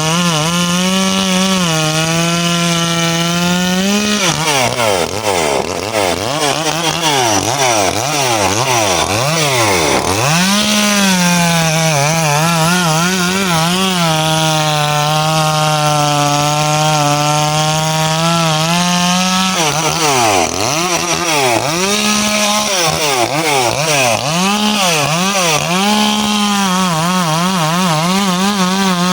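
Two-stroke chainsaw running at high speed through coconut trunk wood, its pitch held steady for several seconds at a time while cutting. In between, the engine speed swings up and down repeatedly.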